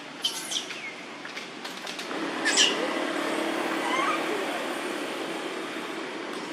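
A motorbike engine runs steadily from about two seconds in, under short high chirping calls; the loudest of these is a sharp falling squeal about two and a half seconds in.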